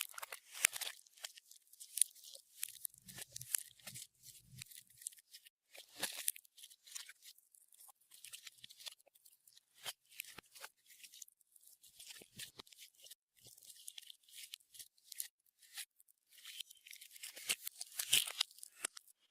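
Clear slime being worked by hand with makeup and glitter mixed in, giving dense irregular crackles, crunches and sticky pops in quick clusters.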